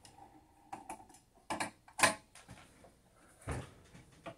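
Scattered light clicks and knocks, about five, of a screwdriver and hands working on the metal frame of a Videojet DataFlex Plus 6420 thermal transfer printer as a part is taken off.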